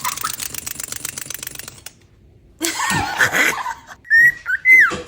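A parrot calling: three short, loud whistled notes near the end, each holding level and then dropping in pitch, after a harsh noisy squawk about halfway through. The first two seconds hold a fast run of clicking.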